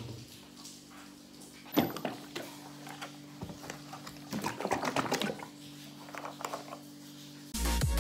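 A single knock about two seconds in, then a milky drink glugging and splashing out of a plastic jug into a glass, over a low steady hum; music comes in near the end.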